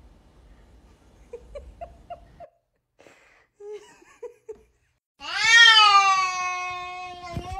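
A cat gives one long, loud meow. It jumps up sharply at the start, then eases down into a held, drawn-out note lasting over two seconds.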